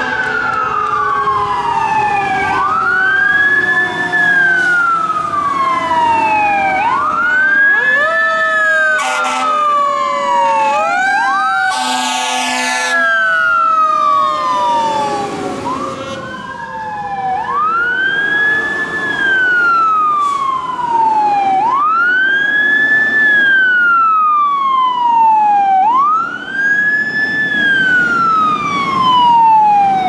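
Fire truck siren wailing up and down about every four seconds, with a second, mechanical Q siren slowly winding down underneath. Air horn blasts come near the middle, a short one and then a longer one about three seconds later.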